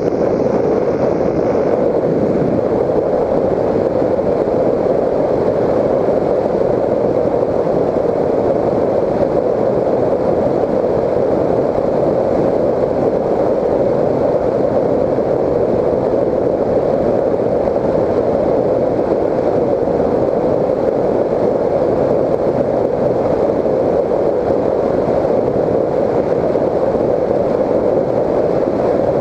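Steady rush of airflow over a GoPro Hero 3 riding on a Raptor 1600 FPV model plane in flight. It is an even, unchanging noise with no clear motor tone standing out.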